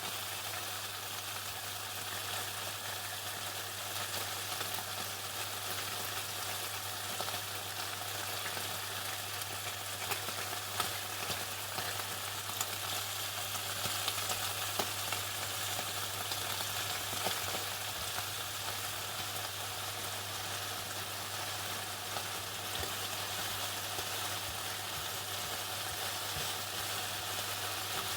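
Chicken frying in hot oil: a steady, dense sizzle with small crackles and pops. A constant low hum runs underneath.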